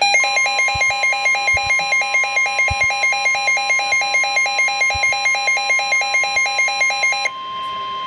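Midland weather alert radio sounding its warning alarm, a loud electronic warble pulsing about four times a second, over the steady 1050 Hz NOAA Weather Radio warning alert tone. The warble cuts off about seven seconds in, leaving the steady tone alone. Together they signal that a severe thunderstorm warning has just been received.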